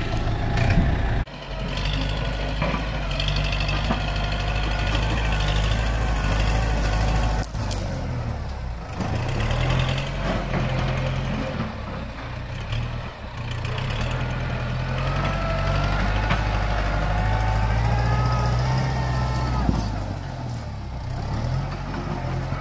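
A farm tractor's diesel engine runs steadily under load while it pulls a disc implement through dry ground. A wavering high-pitched whine rides over the engine for much of the time.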